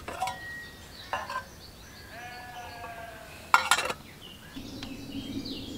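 An egg being put into a metal mug of water on a small meths burner, with light metallic clinks and one sharp knock about three and a half seconds in. A drawn-out wavering animal call sounds about two seconds in, and faint bird chirps follow near the end.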